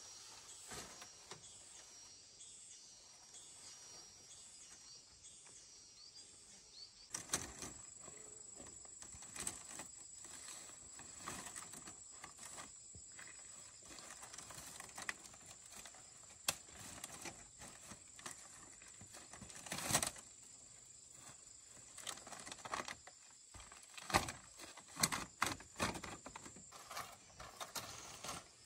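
Scattered sharp knocks and taps from handwork, the loudest about two-thirds of the way through and a cluster near the end. Under them runs a steady high-pitched insect drone that sets in about seven seconds in, after fainter high chirping.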